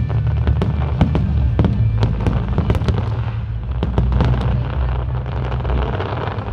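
Aerial fireworks show: a rapid run of sharp bangs and pops, several a second, over a continuous low rumble, thinning out toward the end.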